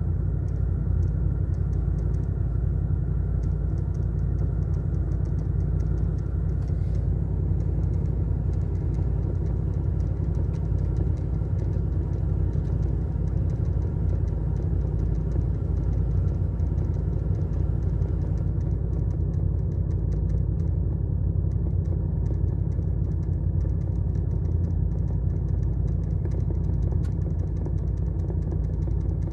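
Seat Ateca cabin with a steady low road and engine rumble, over which the ventilation gives a faint, rapid clicking rattle. The rattle is a fault that the workshop has not been able to trace.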